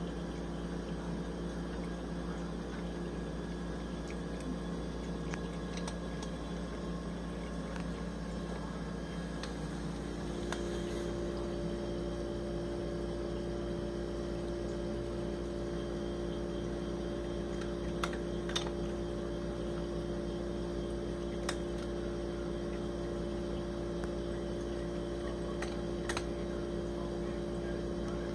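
A cat crunching dry kibble, heard as scattered small clicks, over a steady mechanical hum whose pitch shifts about ten seconds in.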